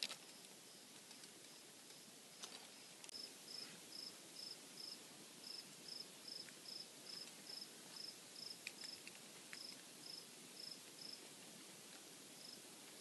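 Faint cricket chirping in a steady rhythm, about two to three short high chirps a second, with a short pause near the end.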